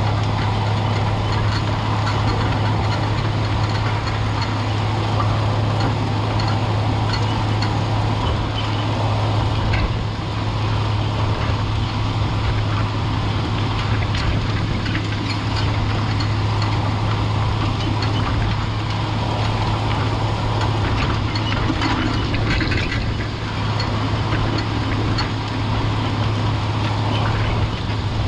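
White 4-270 four-wheel-drive tractor's diesel engine running steadily under load, pulling a strip-till toolbar through the field.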